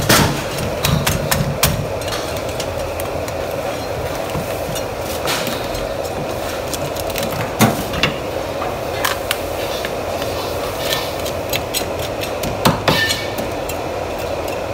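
Cleaver and knife knocking and tapping on a wooden chopping block while a crab is cut up, scattered clicks with louder knocks at the start, about halfway and near the end, over a steady hum.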